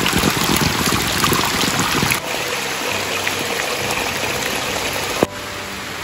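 Heavy rain falling, a steady hiss of water. The sound drops abruptly about two seconds in, and again just after a sharp click about five seconds in.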